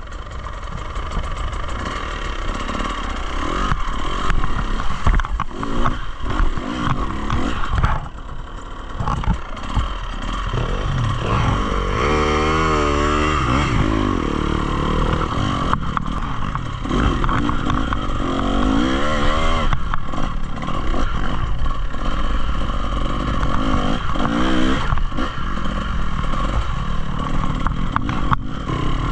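Dirt bike engine being ridden on a trail, revving up and down through the throttle, with clattering knocks from the bike over rough ground. About halfway through, the engine pitch swings quickly up and down several times.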